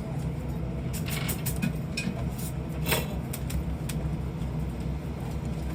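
Small sharp clicks and taps, most of them between about one and four seconds in, over a steady low hum.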